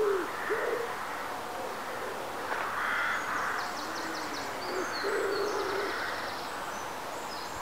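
Birds calling: a few short low hooting calls that rise and fall, with high, quick twittering song above them, over a steady background rush.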